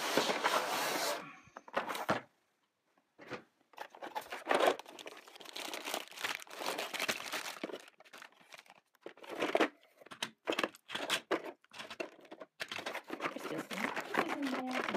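A cardboard toy box being torn open, then plastic bags of Lego Duplo bricks crinkling and rustling as they are handled, with scattered short knocks. The noise comes in irregular bursts, loudest in the first second, with a brief silent pause after about two seconds.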